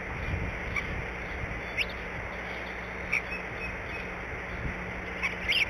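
A few short, high bird chirps, scattered singly and then two close together near the end, over a steady outdoor hiss with a low rumble.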